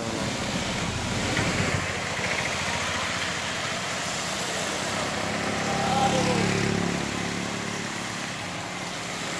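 Rain hiss and tyres swishing on a wet road, with a motor vehicle's engine passing and swelling to its loudest about six seconds in.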